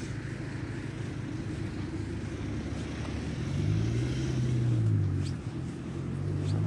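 Road traffic: a steady rumble of cars on the street, with one car engine growing louder about halfway through, its pitch rising and then falling as it goes by.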